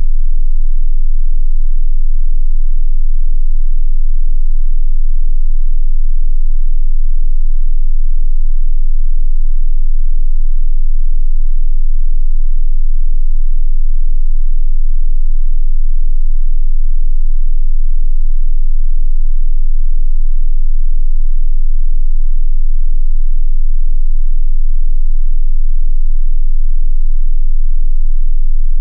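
Loud, steady 18.98 Hz sine test tone, a pure infrasonic pitch at the bottom edge of hearing. This is the so-called ghost frequency tied to paranormal sensations.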